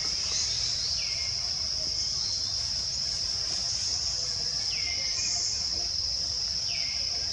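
Steady high-pitched drone of forest insects, with a bird's short call that falls in pitch and then levels off, heard three times, a couple of seconds apart.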